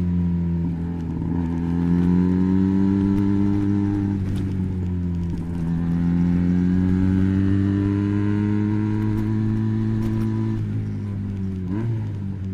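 Benelli BN302's 300 cc parallel-twin running through an Arrow exhaust with the dB killer fitted. The engine note holds fairly steady, easing down and back up in pitch a few times, with a short blip near the end.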